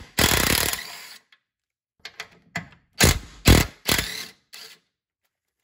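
Ratchet turning a 13 mm socket to back off a transmission mount nut, with rapid clicking in two short runs about a second in and again about three seconds in, and a few single clicks between.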